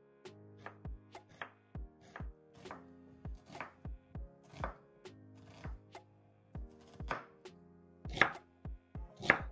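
Chef's knife slicing an onion into half-rings on a wooden cutting board: a steady run of sharp knife strokes knocking on the board, about two a second.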